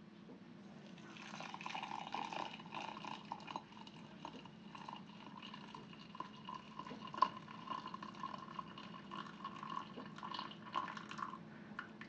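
Hot water poured from a kettle into a ceramic mug: a steady splashing pour that starts about a second in and stops near the end, followed by a drip or two.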